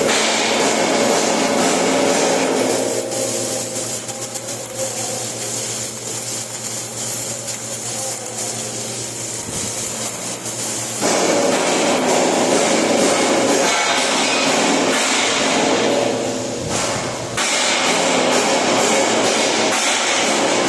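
Flux-cored arc welding: a continuous crackling arc over a low steady hum. It goes quieter from about three seconds in until about eleven seconds, and dips briefly about seventeen seconds in.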